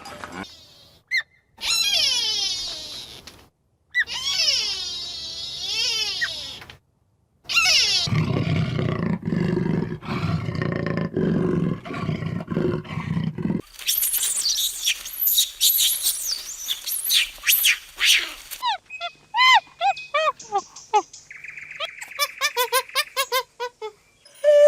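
A string of different animal calls, cut one after another with brief silent gaps. First come two stretches of wavering, pitched calls. Then a long, loud, low call lasts several seconds in the middle, followed by a high, crackling noise and short chirping calls near the end.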